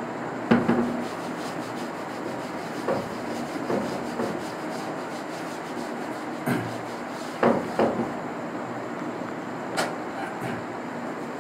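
Whiteboard being wiped with a duster: several short rubbing strokes a second or two apart over a steady background hiss.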